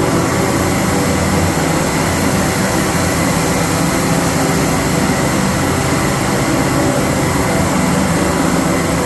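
Chainsaw engines running steadily on life-test rigs: a loud, even drone that holds its pitch.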